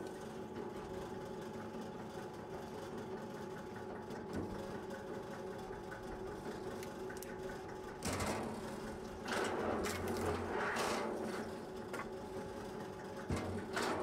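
Powered log splitter running with a steady motor hum. It grows louder and rougher from about eight seconds in, as a log is set against the wedge, and there is a sharp knock near the end.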